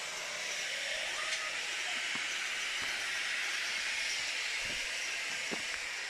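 Steady, even outdoor background hiss with a few faint ticks.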